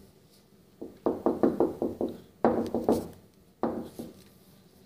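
A rapid run of knocks, about six or seven a second for just over a second, followed by two shorter bursts of knocking.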